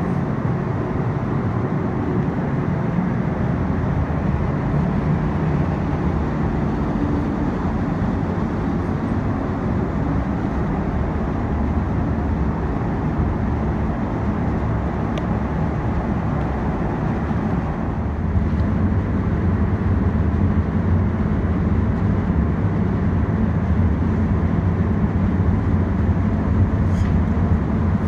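Paint spray booth's ventilation running: a steady rumble of moving air and fan hum, a little louder and deeper from about two-thirds of the way in.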